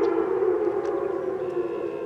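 Electronic outdoor warning siren sounding at a lower level with echo, its pitch slowly falling.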